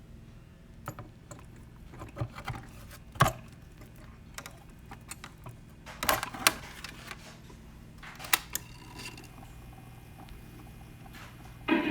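Scattered sharp clicks and knocks from an Admiral 6V12-N radio/record player being handled between records, over a steady low hum from the set. Orchestral music with brass starts right at the end.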